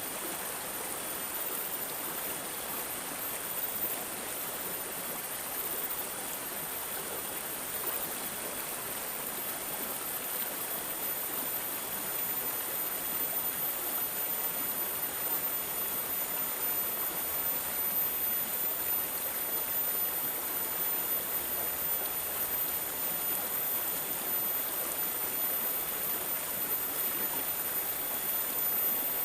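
Water gurgling and trickling steadily, like a small stream, growing slightly louder about halfway through.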